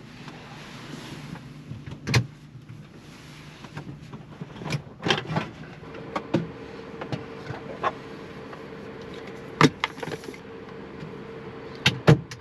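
Rummaging and handling sounds as a kettle is got out of storage inside a camper van: rustling at first, then scattered sharp knocks and clunks, the loudest about two seconds in, near ten seconds and twice near the end. A faint steady hum starts about halfway through.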